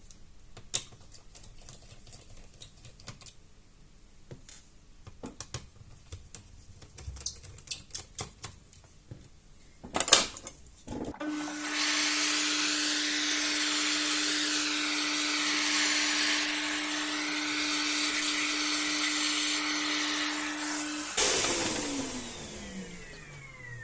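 Small clicks and taps of parts being handled. About eleven seconds in, a small electric motor tool starts and runs steadily with a whine and a strong hiss for about ten seconds, then stops and spins down with a falling whine.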